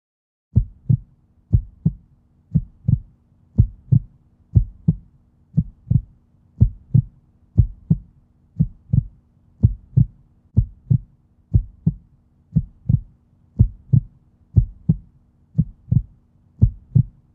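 Heartbeat sound effect: steady double thumps, lub-dub, about one beat a second over a faint low drone, starting about half a second in.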